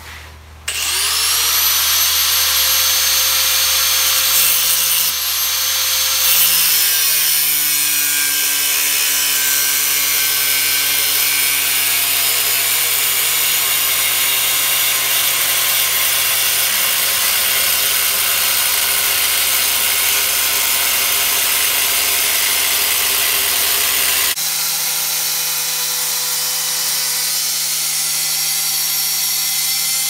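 Handheld angle grinder spinning up with a rising whine about a second in, then cutting into a scrap bandsaw blade of 15N20 steel, a steady high whine with a grinding hiss. Near the end the sound shifts abruptly to a somewhat different steady pitch.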